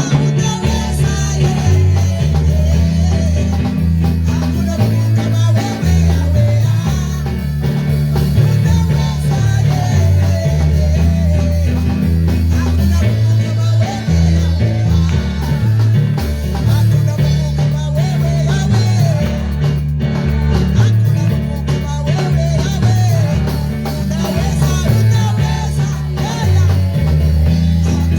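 Worship music from a band: a prominent, moving bass line with drums and guitar under singing.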